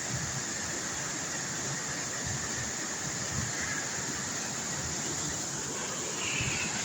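Waterfall rushing steadily, an even hiss of falling water with no change in level.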